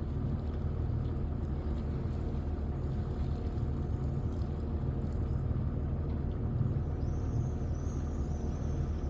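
Canal tour boat's engine running steadily, a low even hum with water and wind noise over it.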